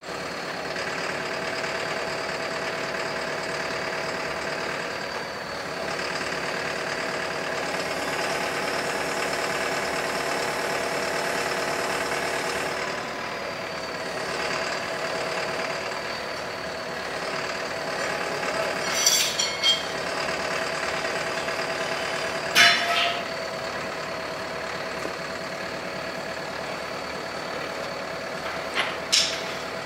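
Lorry's diesel engine running steadily with a high whine, driving a lorry-mounted hydraulic loader crane as it lifts a truck cab. A few sharp knocks cut in: a cluster about two-thirds of the way through, one loud one soon after, and two near the end.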